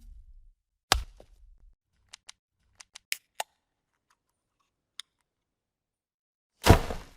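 A sequence of separate transition sound effects: a sharp hit about a second in, a quick run of small clicks around the middle, a lone click, then a louder noisy burst near the end that fades over about half a second.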